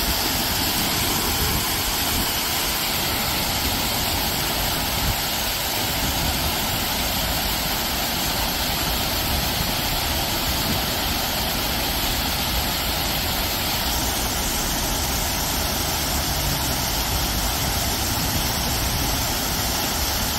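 Water falling over a wide, stepped rock-wall waterfall into a pool: a steady, unbroken rush.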